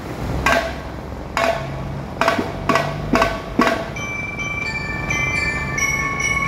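Percussion music: six sharp strikes, each with a short ring, over a low hum, then from about four seconds in several held, bell-like high notes.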